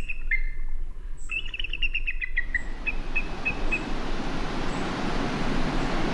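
Bald eagle chittering: two quick series of short, high piping notes. About two and a half seconds in they give way abruptly to the steady rushing of ocean surf breaking on rocky shore, with a few last faint chirps.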